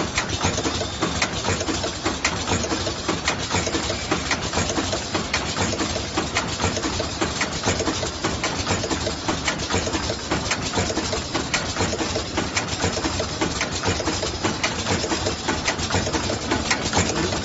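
Wet wipe sachet packing machine running: a continuous mechanical clatter of rapid, closely spaced clicks over a steady machine hum.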